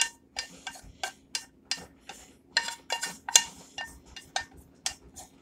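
A utensil scraping and clinking against a glass mixing bowl while stirring a thick stuffing-and-squash casserole mix, quick repeated knocks about four times a second, some with a short ring.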